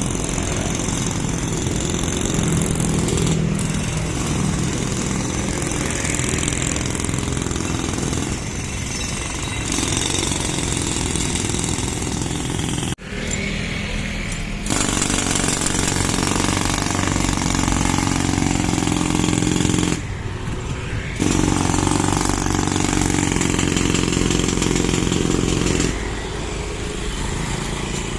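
Road-works noise: a steady mechanical din of machinery and engines running at a street under repair, changing abruptly several times.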